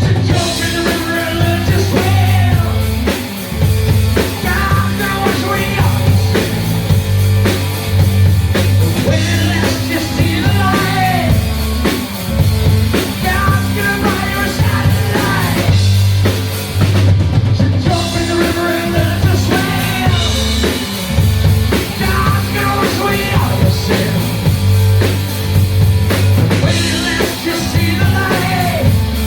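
A live band playing a song at full volume: drum kit, a heavy bass line and a singing voice.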